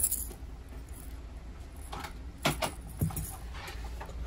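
A few light clicks and knocks about two and a half to three seconds in, over a steady low hum.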